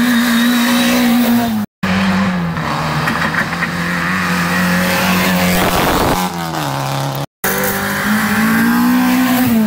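Rally cars driving hard through a bend one after another, their engines revving with the note rising and falling. The sound cuts out twice for a split second.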